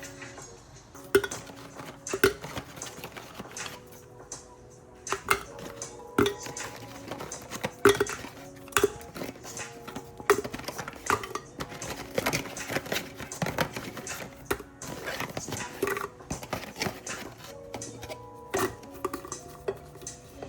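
Dishes and cutlery clinking and knocking as they are handled, many separate strikes, over soft background music.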